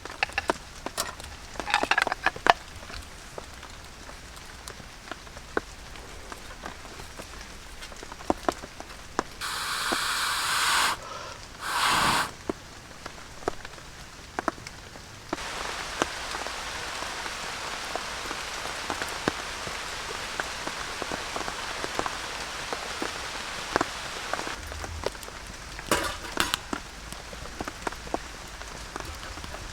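Rain falling, with many scattered drops ticking. There are two brief, louder rushing noises about ten and twelve seconds in, and the rain hiss thickens for several seconds in the middle before easing again.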